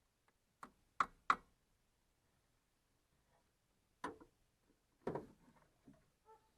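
A handful of separate sharp clicks and knocks at irregular intervals, the loudest two close together about a second in. Near the end comes a short run of high, repeated whines.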